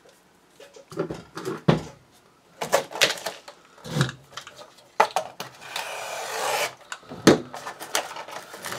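A cardboard canister firework shell being handled and worked open on a bench: scattered knocks and clicks, with a rasping noise about a second long near the middle.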